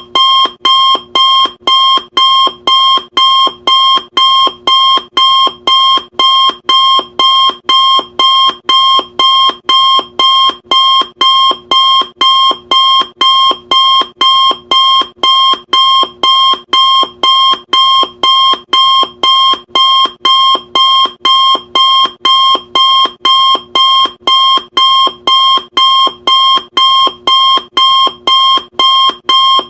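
Loud electronic timer alarm beeping in an unbroken, even rhythm of about two short beeps a second. Each beep is a sharp, high tone that starts abruptly and fades quickly.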